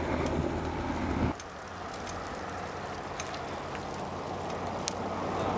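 Steady rush of wind and road noise on the microphone of a camera riding on a road bike. It drops abruptly about a second and a half in, then builds slowly.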